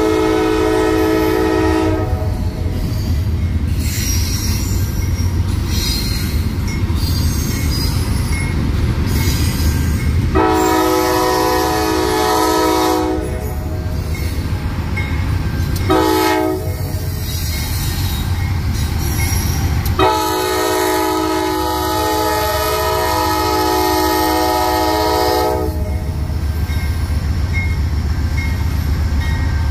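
Norfolk Southern locomotive's air horn sounding the grade-crossing signal: long, long, short, then a last long blast held about five and a half seconds. A passing intermodal train's wheels and cars rumble steadily underneath.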